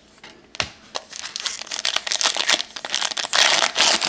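Plastic wrapper of a trading card pack being torn open and crinkled by hand, with a click about half a second in and the crinkling loudest near the end.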